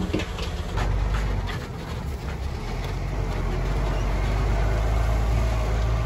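Heavy diesel engine of earthmoving machinery running with a steady low rumble, growing louder about halfway through.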